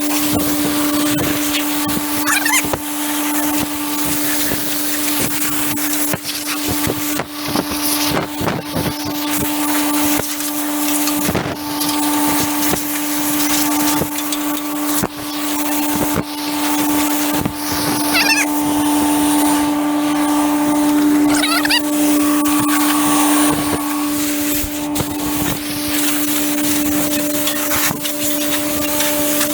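Compressed air blasting from an air-line blow gun, a loud hiss that swells and fades as the jet is played over the baler. Under it runs the steady hum of a Hydrovane air compressor.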